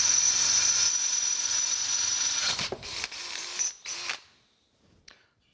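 Cordless drill boring a letter F bit into a cast-iron casting to make a tap hole, running steadily with a high whine. About two and a half seconds in it breaks into a few short bursts, then stops about four seconds in.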